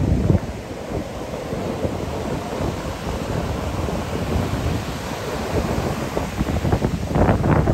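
Rough ocean surf breaking on a sandy beach: a steady low rumble of waves, with the hissing, fizzing wash of a breaking wave growing louder near the end.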